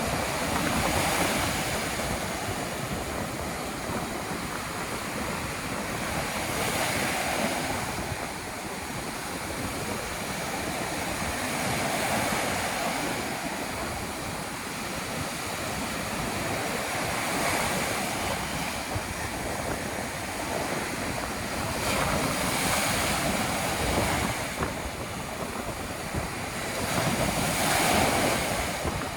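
Ocean surf breaking on a beach in stormy weather, the wash swelling roughly every five seconds as waves come in, with wind blowing over the microphone.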